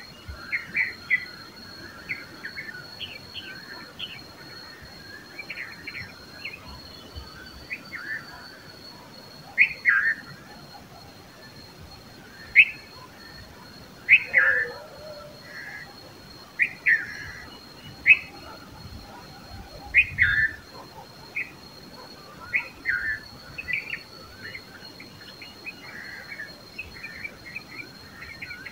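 Red-vented bulbuls chirping: short, sharp calls given in irregular bursts, over a faint steady high-pitched whine.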